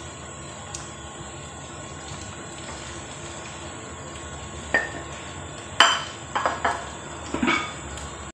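A spatula clinking and knocking against a large pot of boiling tom yam soup as fish pieces are stirred in, several sharp clinks between about five and eight seconds in, over the steady hiss of the boiling pot.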